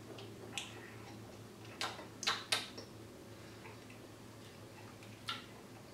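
A few short lip smacks and tongue clicks from people tasting a mouthful of beer, three of them close together about two seconds in, over a low steady room hum.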